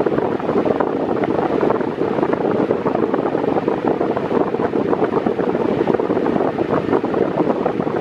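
Mondial Maxi Power 40 cm 140 W six-blade fan running on its lowest speed, its airflow blowing onto the microphone as a steady, loud rush of air with constant gusty buffeting.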